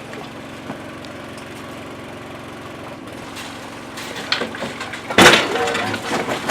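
An engine running steadily, then a series of sharp knocks from about four seconds in and a loud crash a little after five seconds, followed by clattering impacts.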